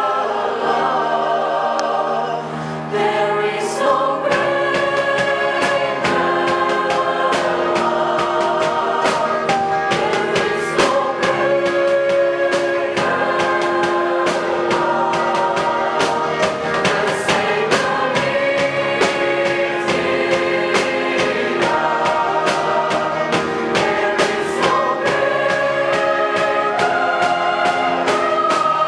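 Large girls' choir singing in several parts, holding long chords. A steady percussive beat joins about four seconds in.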